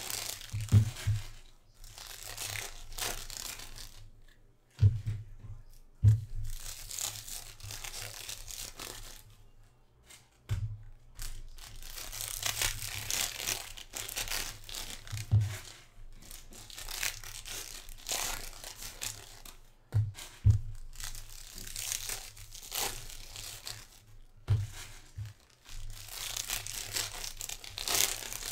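Foil trading-card packs being torn open and their wrappers crinkled by hand, in repeated bursts of rustling. Several dull thumps of handling on the table come through between them.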